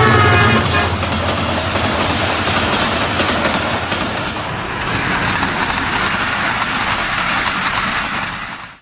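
A Pakistan Railways diesel locomotive passes close by, its engine pitch falling as it goes past. It is followed by passenger coaches rolling by with a steady, loud noise of wheels on rail.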